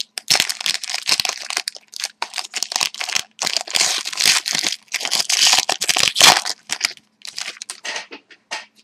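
A foil trading-card pack wrapper being torn open and crinkled by hand: a dense run of irregular crackling that thins to a few separate crinkles near the end.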